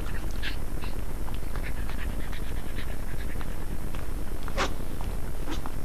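A dog panting, with scattered light clicks and one sharper click about four and a half seconds in, over a steady low hum.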